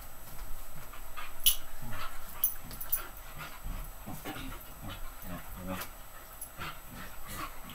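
A collie-type dog whining and vocalizing in short bursts during rough play, with bedding rustling and a couple of sharp clicks in the first few seconds.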